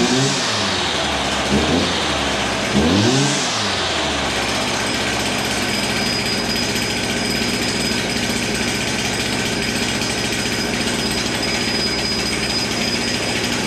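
Turbocharged truck engine revved up and down about four times, the turbo whine rising and falling with each rev. It is then held at high revs with a steady high whistle. The turbo's wastegate is seized.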